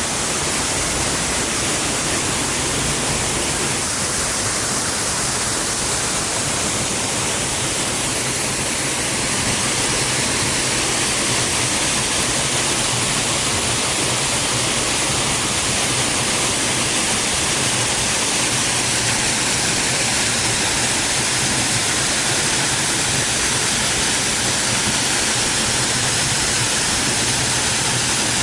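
Waterfall rushing, a loud, dense, unbroken noise of falling water that swells slightly about a third of the way in.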